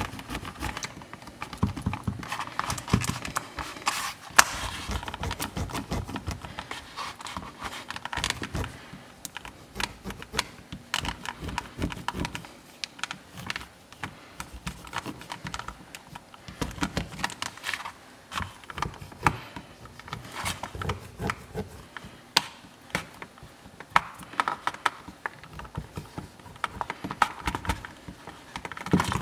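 Irregular small clicks, scratching and plastic crinkling as the end of a Sharpie marker is pressed and rubbed over a vacuum-sealed plastic bag. This is the wet leather holster inside being worked against the gun's body lines to mold it.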